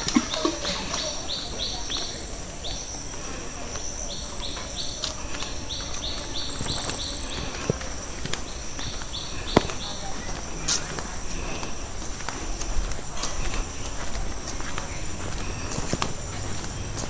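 Steady high-pitched drone of insects such as crickets or cicadas, with runs of short, quick high chirps through the first half and occasional footsteps on a dirt path.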